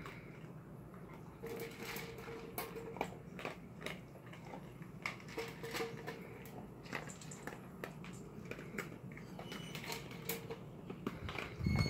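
A dog crunching dry kibble from a metal bowl: a run of irregular sharp crunches and clicks as it chews.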